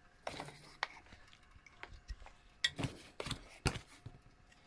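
Scattered light clicks and knocks of tools and objects being handled and set down, a few sharp taps clustered around the middle.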